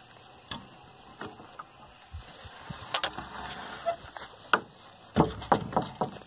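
Knocks and clunks of wooden boards being handled, with a quick run of several loud ones about five seconds in, as the wooden door of the chicken house is pulled to.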